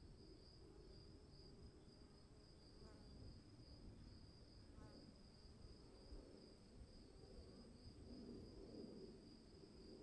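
Faint storm-day ambience: insects trilling steadily at a high pitch over a low rumbling background noise, with two brief faint chirps about three and five seconds in.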